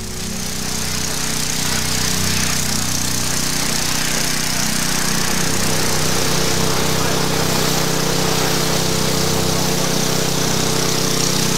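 A small engine-driven pump running steadily under the loud hiss of a high-pressure water hose spraying.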